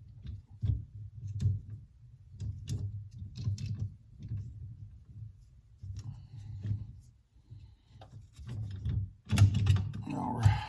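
Irregular clicks, knocks and rubbing of metal tools and parts as a steering wheel puller and the freshly loosened original steering wheel are worked off the steering column. A louder cluster of clunks comes near the end.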